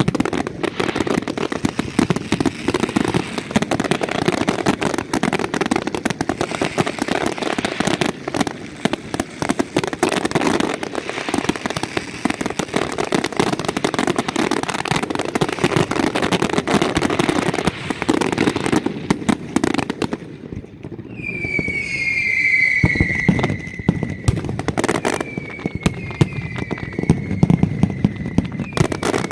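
Nocturna de Valencia fireworks: a dense, continuous barrage of crackling firecrackers and bangs, then after a brief lull near two-thirds of the way through, several whistles falling in pitch, with a few sharp bangs among them.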